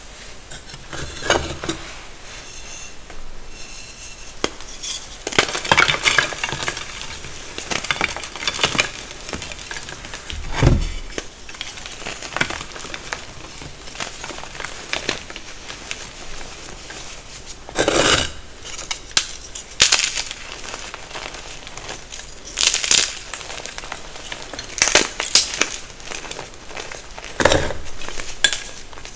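Reformed gym chalk rounds being crushed and crumbled by hand into powder: a soft gritty crumbling with irregular sharp crunches and snaps every few seconds as pieces break.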